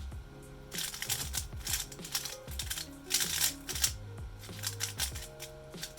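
MoYu RS3M 3x3 speedcube being turned rapidly during a solve: bursts of quick plastic clicking, over background music with a steady beat.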